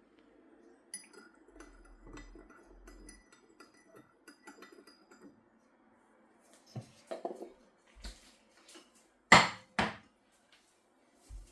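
Kitchenware handled: light clinks of crockery and cutlery with a faint ringing, then a few knocks and one loud clack about nine seconds in, followed by a softer one.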